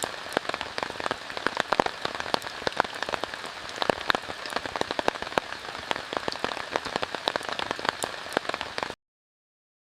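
Steady rain falling, a dense patter of sharp drop ticks over a constant hiss, which cuts off suddenly near the end.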